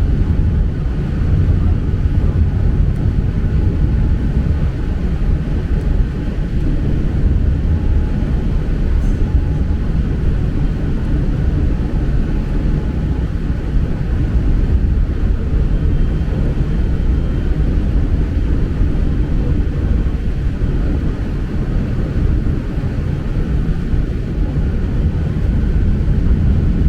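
Peak Tram funicular car rumbling steadily as it runs down the steep track, heard from inside the car.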